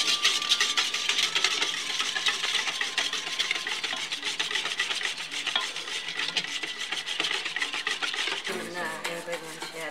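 Wire balloon whisk beating pancake batter in a stainless steel bowl: rapid, steady scraping and rattling of the wires against the metal.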